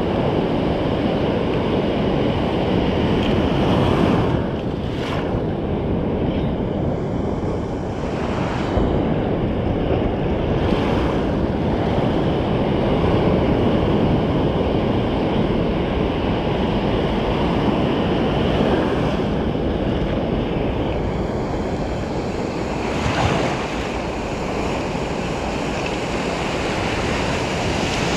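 Ocean surf breaking and washing up a sandy beach in a steady roar, swelling now and then as waves come in, with wind buffeting the microphone.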